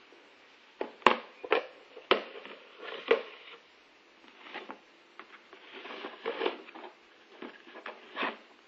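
Plastic food-storage containers and their lids knocking and clattering as they are handled and set down: a quick run of sharp knocks in the first few seconds, then softer scraping and a few more knocks near the end.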